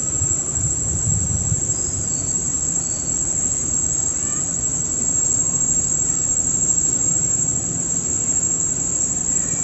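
Steady, high-pitched drone of insects in the forest, with a low rumble beneath it and a few faint high chirps.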